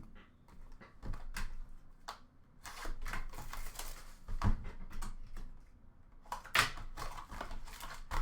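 Trading cards and their pack wrapper being handled between packs: irregular rustling, crinkling and small clicks, with busier stretches about three seconds in and again near six and a half seconds.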